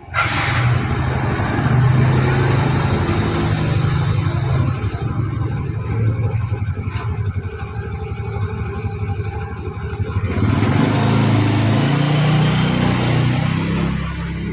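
An engine running steadily, its pitch shifting about ten seconds in.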